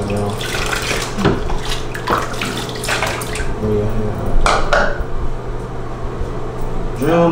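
Bath water splashing and sloshing in a bathtub as a baby slaps at it and water is scooped with a plastic cup, in a string of short splashes. A short voice sound comes about four seconds in, and a rising one near the end.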